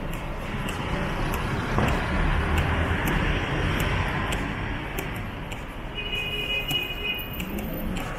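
City street traffic noise: a steady rumble of cars and other road vehicles. A brief high, steady tone sounds for about a second and a half near the end.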